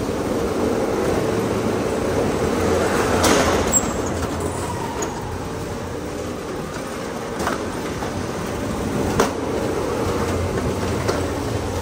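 Small electric go-karts driving on a smooth concrete track: a steady motor hum and tyre rumble, broken by a few sharp knocks, the loudest about three seconds in.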